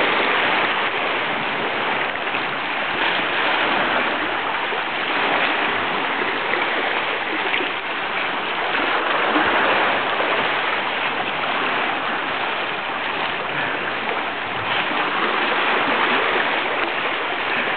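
Calm sea water lapping and washing at the shore, a steady, even wash of water sound.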